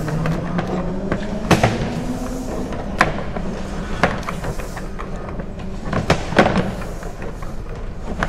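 Irregular knocks and thuds from a sewer inspection camera head and push rod being pushed along a 6-inch sewer main line, over a steady low hum.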